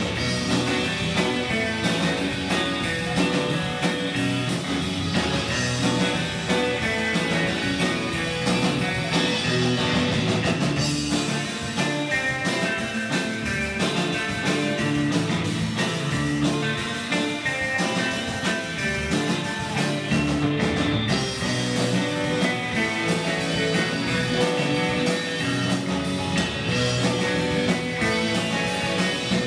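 Live rock band playing an instrumental: electric guitars over a drum kit, with no singing.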